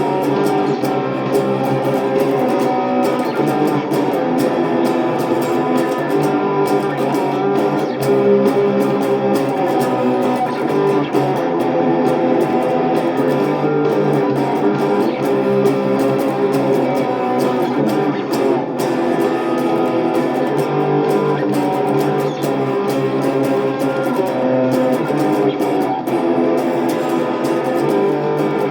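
Electric guitar, a Stratocaster-style guitar through a small Nux Mighty 8BT MK2 combo amp, played continuously with picked and strummed notes.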